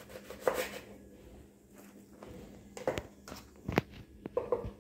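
Kitchen knife cutting through a lemon on a bamboo cutting board, with sharp knocks of the knife against the board: one about half a second in, then a quick run of knocks and taps in the last two seconds.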